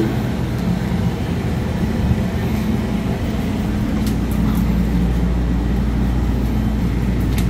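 Steady low rumble of road vehicles in motion.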